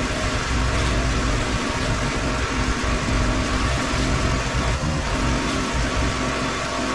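Pressure washer's engine running steadily under load, with the constant hiss of the high-pressure water jet blasting stained concrete.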